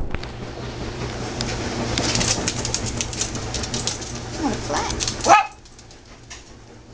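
A dog moving about, with a steady rustling and many small clicks, then two short yelps that rise steeply in pitch after about four and a half seconds, the second the loudest. The rustling cuts off abruptly right after.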